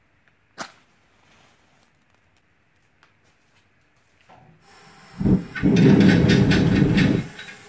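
Gas forge burner being lit: a click, then gas hissing, catching about a second later with a loud crackling roar for about two seconds before dropping back to a quieter hiss near the end.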